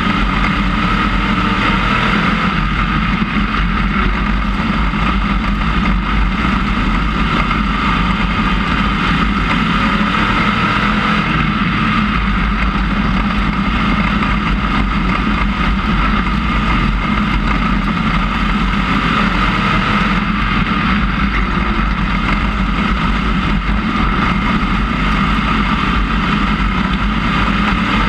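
IMCA Sportmod race car's V8 engine running hard at speed, heard from inside the cockpit, its pitch holding steady throughout.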